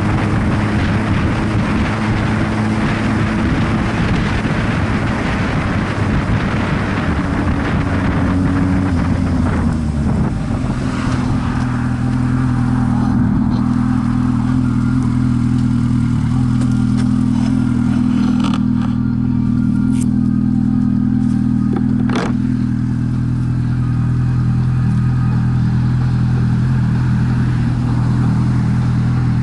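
Motor vehicle engine running under wind and road rush while moving. About ten seconds in, the rush dies away and leaves the engine's steady low hum. Two sharp clicks come near the middle.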